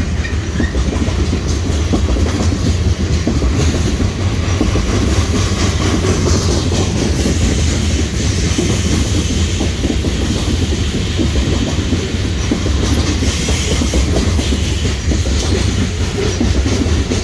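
Loaded coal train's hopper cars rolling past, a steady rumble with the clickety-clack of wheels over the rail joints.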